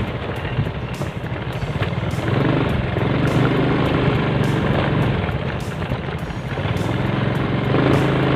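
Motorcycle engine running as the bike rides along, its steady note easing off around five to six seconds in and picking up again about seven seconds in.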